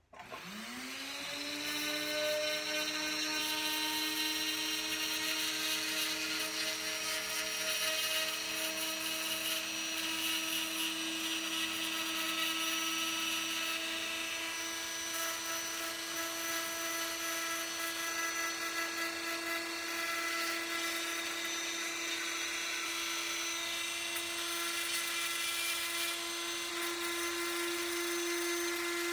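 Dremel rotary tool on a flexible shaft spinning up with a rising whine, then running at a steady high pitch as its fine diamond burr grinds grime from around the rivets of a copper skillet. Its pitch steps slightly higher about three-quarters of the way through.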